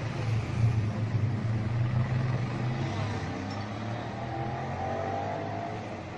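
Cars and vans driving past close by on the street, a low engine drone that is strongest for the first few seconds and then fades, with a faint rising whine near the end.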